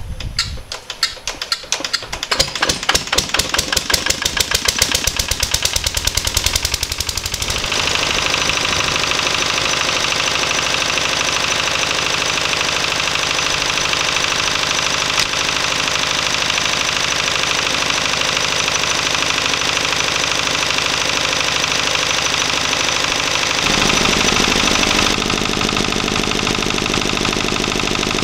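A 1956 Lister LD1 single-cylinder air-cooled diesel is turned over in a rhythm of knocks that quickens for about seven seconds. It then catches and runs steadily at its fast rated speed of 1500 rpm. In the last few seconds it is heard close to its exhaust silencer, deeper and louder.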